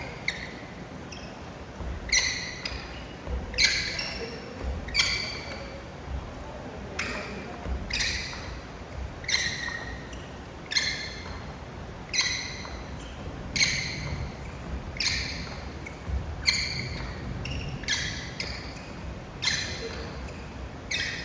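Badminton racket strings striking shuttlecocks in a push drill: a sharp, ringing hit about every one and a half seconds, in an even rhythm.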